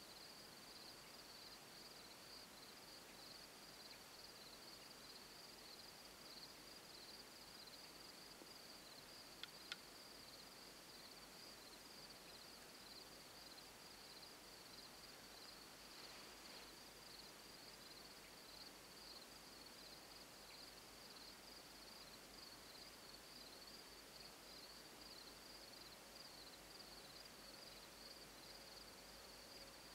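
Near silence, with faint, steady chirring of insects in a high, finely pulsing band, and two small clicks about ten seconds in.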